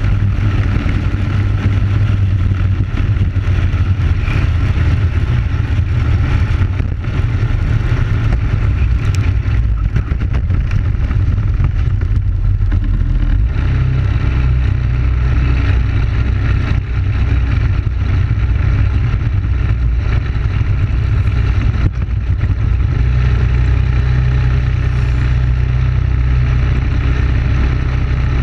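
Briggs & Stratton Animal single-cylinder four-stroke kart engine running at speed, heard from onboard. About halfway through its pitch drops low as the kart slows off the track in the grass, then climbs again near the end as it picks up speed.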